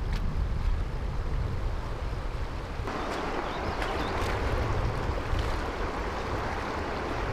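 Rushing creek water over a rocky riffle, with wind rumbling on the microphone; the water noise grows fuller about three seconds in. A hooked trout splashes briefly at the surface a few times around the middle.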